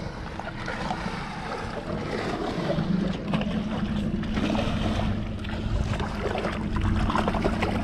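Wind and water around a small fishing boat, with a steady low hum that comes in about two and a half seconds in.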